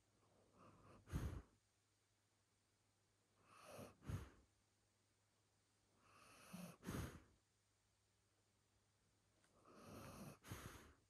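A large dog breathing slowly and softly in its sleep. There are four breaths about three seconds apart, each a longer draw followed by a short, sharper puff.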